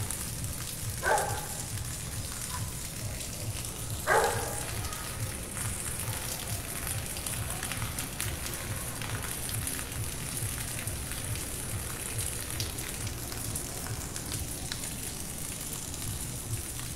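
Steady rain falling on roofs and pavement, a constant hiss. Two brief, louder sounds stand out, about one second and four seconds in.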